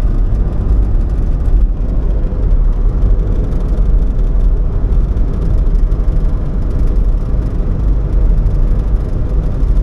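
Steady road and engine noise of a car driving, a loud low rumble that holds even throughout.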